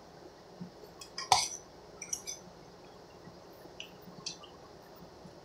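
Metal fork clinking against a stainless steel pot a few times while stew is scooped out, the loudest clink a little over a second in.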